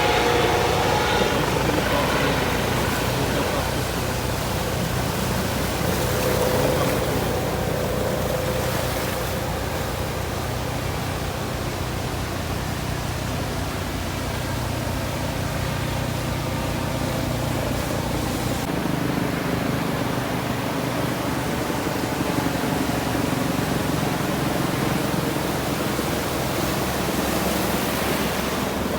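A steady engine drone over a constant rushing noise. About two-thirds of the way in, the deepest part of the hum drops away and the drone thins.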